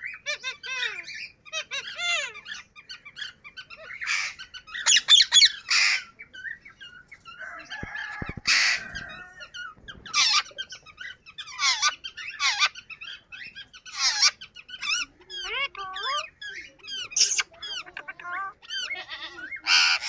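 Indian ringneck parakeet calling: sharp screeches every second or two, with softer chattering chirps and warbles between them.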